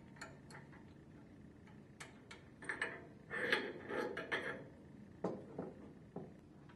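Faint small metallic clicks and clinks as the packing gland is worked free and slid off the shaft of a Viking internal gear pump, busiest a few seconds in. A single knock about five seconds in as the gland is set down on a wooden workbench.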